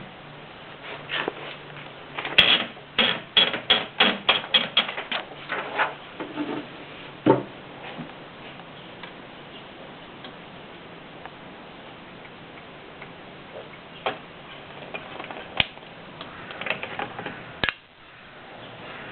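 Typewriter keys striking: a quick run of about a dozen keystrokes a few seconds in, a heavier strike shortly after, then scattered single strikes near the end.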